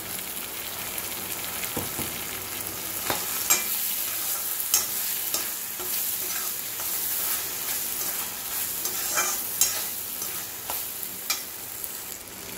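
Freshly ground masala paste frying and sizzling in oil in a kadai with onions and tomatoes, stirred with a steel slotted spoon that scrapes and clicks against the pan several times.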